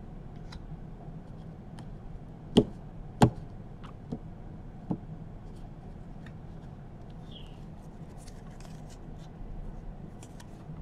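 Trading cards being handled: a few soft clicks, the two sharpest about two and a half and three seconds in, and a light rustle of cards being passed between the hands near the end, over a low steady hum.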